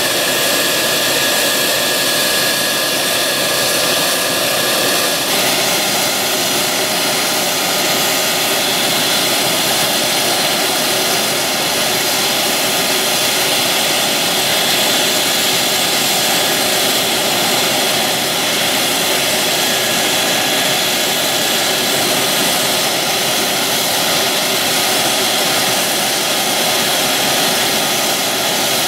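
F-16 fighter jet's General Electric F110 turbofan running at idle on the ramp: a loud, steady jet rush with a faint high whine. Some of the whine tones drop out about five seconds in.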